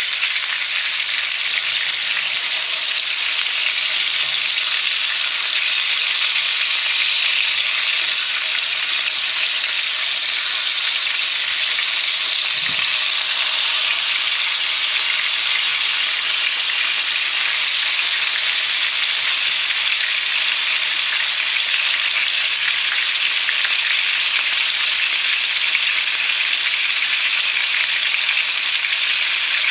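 Floured salt-cod pieces shallow-frying in extra-virgin olive oil, a steady sizzle with no let-up; a little before halfway a slotted spatula moves the pieces in the pan with a faint low knock.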